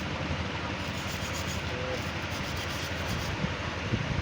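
Steady rushing background noise with a low hum underneath and a couple of faint clicks near the end.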